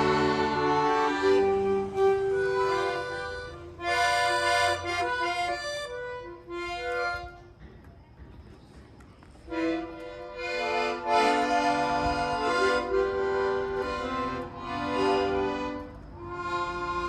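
Accordion playing a melody with chords, breaking off for about two seconds midway and then starting up again.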